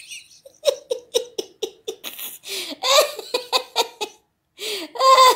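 A person laughing at length in quick repeated bursts of giggling, with a short pause about four seconds in.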